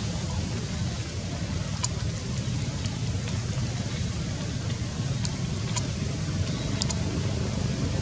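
Steady low outdoor rumble, like distant traffic, with a few faint, short high chirps scattered through it.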